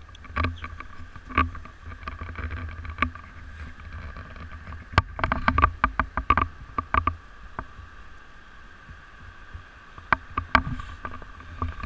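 Handling and clothing noise on a body-worn GoPro as the wearer crouches and moves: low rumbling rustles and knocks, with a quick run of sharp clicks about five seconds in. A faint steady hum sits underneath.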